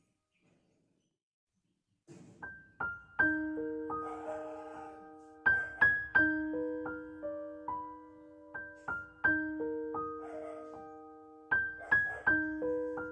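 Background piano music: after about two seconds of near silence, single notes and chords are struck and left to ring out, one after another.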